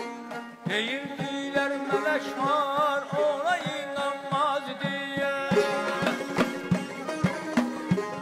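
Instrumental mugham ensemble: a wind instrument plays a held, trilling, ornamented melody, coming in about a second in. Under it, frame drums and a drum keep up regular strokes and a tar plays.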